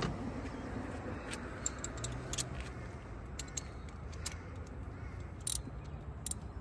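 Steel sockets and a ratchet from a hand socket set clicking and clinking as they are handled, in short sharp clicks at irregular times, the loudest right at the start and about five and a half seconds in, over a low steady hum.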